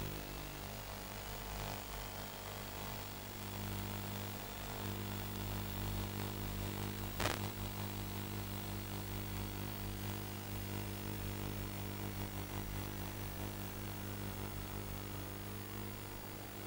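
Steady electrical hum and buzz under a hiss of static, with one sharp click about seven seconds in.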